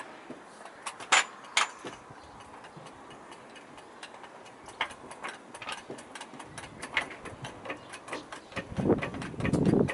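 Vehicle jack being worked by its long handle under a van: a run of sharp metallic clicks and ticks, few at first and quickening from about halfway, with heavier knocks near the end as the load comes on.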